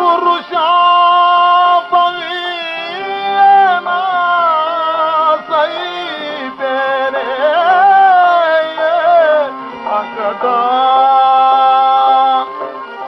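A male voice singing a slow, heavily ornamented Kannada stage-drama song, with a sustained instrumental drone under it. The sound has the narrow, dull top end of an old gramophone record.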